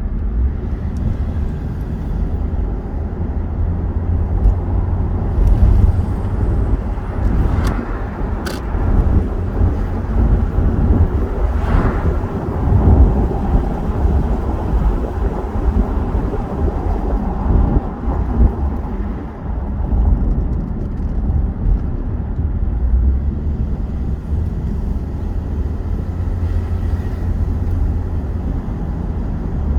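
A car driving along a road: a steady low rumble of tyre and engine noise, with a few brief ticks about eight seconds in.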